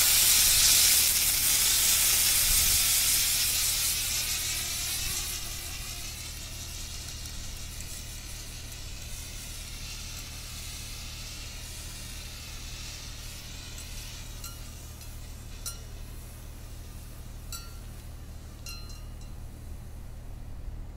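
A 2 kg dry powder fire extinguisher discharging: a sudden loud hiss of powder and gas that dies down over about five seconds to a fainter, steady hiss. A few faint clicks come near the end.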